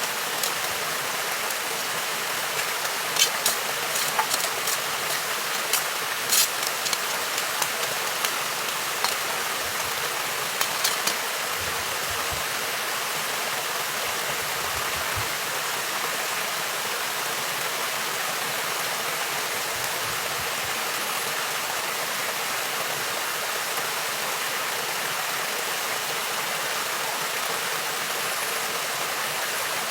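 Steady rush of flowing water, with scattered sharp clicks during roughly the first third.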